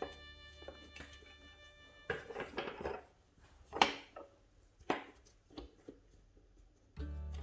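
A handful of sharp knocks and clatters, wood and metal, from a wooden board being fitted and clamped into a workbench, with quiet gaps between them. Faint background music fades out in the first couple of seconds and comes back loudly near the end.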